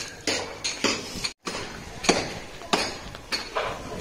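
Repeated hammer-like knocks, one every half second to a second, each with a short ring.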